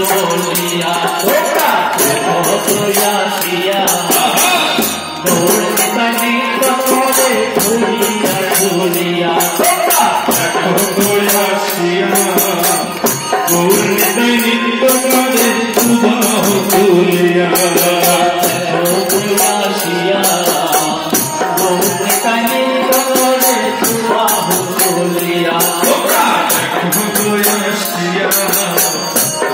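Bengali devotional kirtan: a male voice sings a melodic line with long held notes, over keyboard accompaniment and a khol drum. A fast, even rhythm of jingling hand percussion runs underneath.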